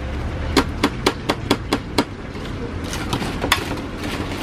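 Metal tongs tapping crisp battered fried pieces in a stainless-steel tray: a quick run of sharp taps, about four a second, then a few scattered clicks about three seconds in as pieces are shifted. The crackly taps show how very crispy the fresh-fried coating is.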